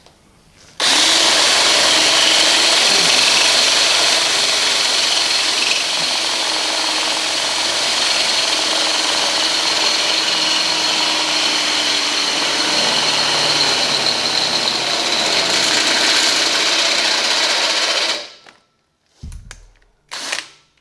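Cordless drill boring a 12 mm hole through a steel scrub-bar bracket and tube. It runs steadily for about 17 seconds on a battery that is running flat, stops suddenly, then gives a few short bursts near the end.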